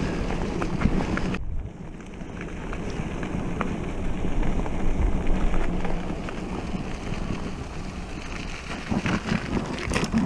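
Wind rushing over the microphone of a mountain bike in motion, with tyre rumble and small rattles from rolling along the trail. The wind noise thins out about one and a half seconds in.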